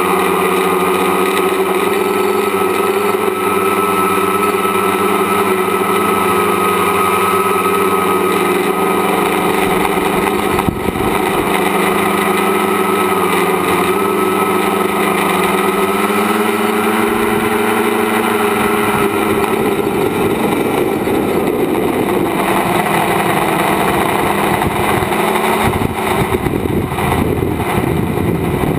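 Tricopter's electric motors and propellers whining steadily in several tones, heard from the onboard camera, the pitch drifting a little with throttle. About two-thirds of the way through, the tone breaks up into a rougher, noisier rush with more low rumble.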